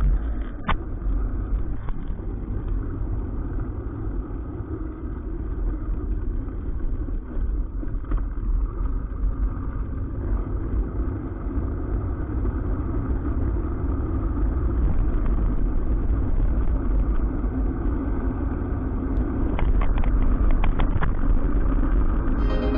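Bicycle riding heard through a bike-mounted camera: steady low wind rumble on the microphone with tyre and road noise from a wet road, and a few small rattling clicks near the end.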